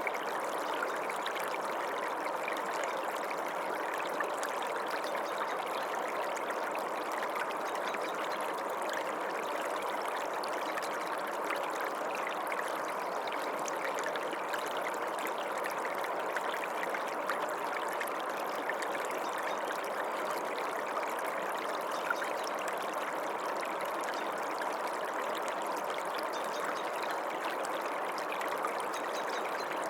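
Small stream running steadily over stones, a continuous babbling and trickling rush of water.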